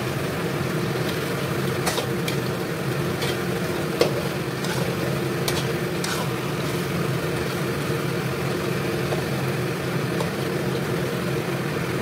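Sweet potato slices sizzling as they deep-fry in oil in a wok, over a steady low hum. A metal spatula stirring them knocks and scrapes against the wok a few times, sharpest about four seconds in.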